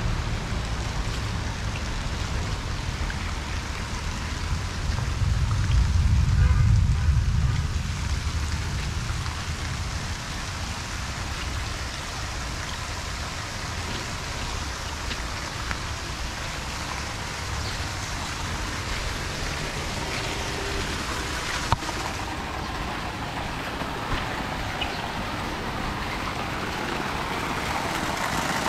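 Steady heavy rain falling on a flooded road and pattering on an umbrella. A low rumble swells for a few seconds about five seconds in, and near the end water pouring from a drainpipe onto the ground grows louder.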